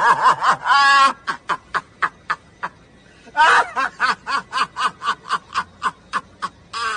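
A man laughing hard: loud pitched whoops at the start and again about three and a half seconds in, with a long run of short, evenly spaced bursts, about four a second, between and after them.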